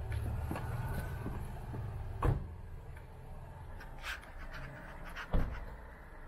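Patrol car doors shutting with two heavy thuds, about two seconds in and again past five seconds, over a low steady engine rumble.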